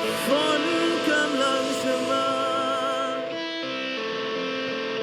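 Live rock band playing an instrumental intro: a lead melody with vibrato over held guitar chords, with a short break about three seconds in.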